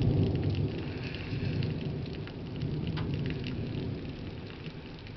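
Rain falling steadily during a thunderstorm, with a low rumble of thunder that is loudest at the start and dies away over the next few seconds.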